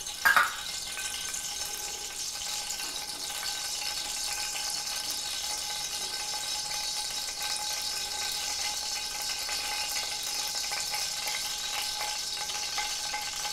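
Cooking oil heating in an aluminium pressure-cooker pot over a gas burner: a steady hiss with a faint sizzle, and a faint steady tone beneath it. A brief knock sounds just after the start.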